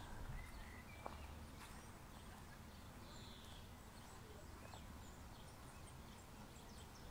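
Near silence: faint outdoor background with a few faint, scattered bird chirps and a light click about a second in.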